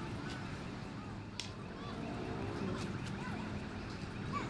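Outdoor city ambience: a steady rumble with scattered short chirps, and one sharp click about a second and a half in.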